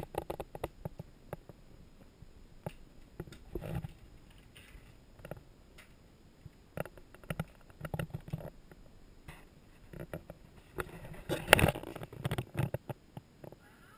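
Footsteps and small handling knocks as people walk across a hard floor: irregular light taps, with a sharper knock a little past two-thirds of the way in.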